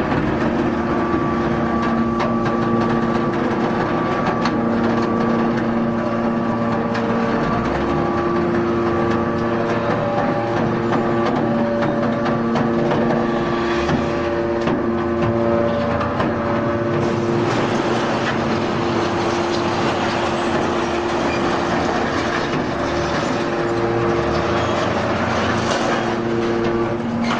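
Hydraulic scrap metal baler running: a steady machine hum with held tones over mechanical noise, the noise growing denser about two-thirds of the way through.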